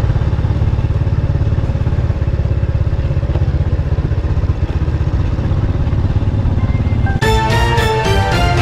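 Motorcycle engine running steadily while riding, heard close up. Background music comes in about seven seconds in.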